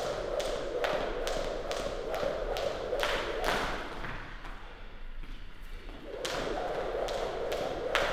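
A jump rope slapping a hard floor in a steady rhythm, about three strikes a second, with the skipper's light landings. The strikes stop for about two seconds midway, then pick up again.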